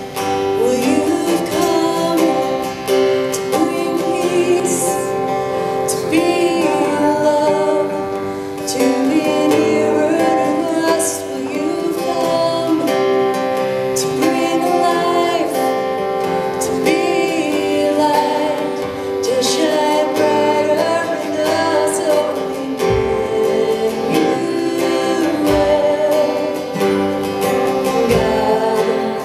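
Live acoustic praise-and-worship song: a woman singing lead over strummed acoustic guitars.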